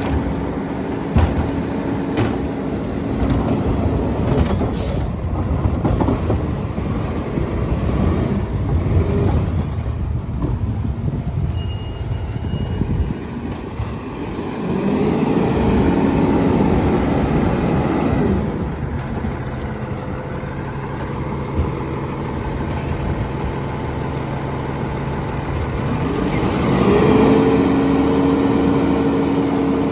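Lodal side-loader garbage truck's diesel engine running, its speed rising and holding twice, at about fifteen seconds and again near the end, as the hydraulic packer cycles to compact the load. There are mechanical knocks, and a short air hiss comes about five seconds in.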